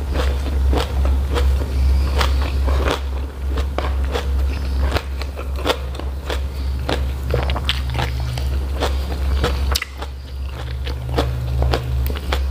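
Close-up chewing of a mouthful of food: a run of quick, irregular wet clicks and crunches from the mouth, over a steady low hum.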